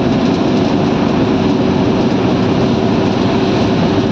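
Steady engine and road noise from a vehicle driving at highway speed.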